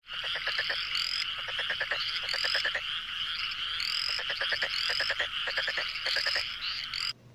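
Frogs calling: rapid trains of croaking pulses with short rising chirps above them, repeating about every half second, cutting off abruptly near the end.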